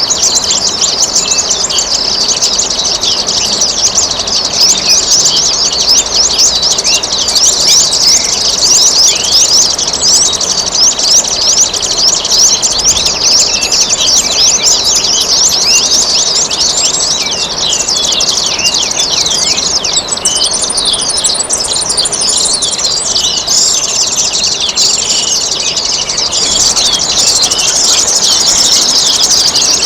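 Many small birds chirping and trilling densely and without a break, over the steady splashing of trickling water.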